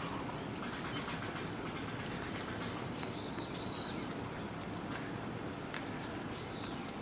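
Outdoor ambience: a steady low rumble and hiss, with short high bird chirps a few times (twice around the middle and once near the end) and scattered faint ticks.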